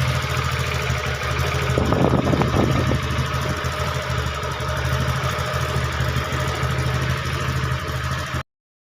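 TVS Ntorq 125 scooter's single-cylinder engine idling steadily after repair of its 'khat khat' knocking, running without the knock. The sound cuts off abruptly near the end.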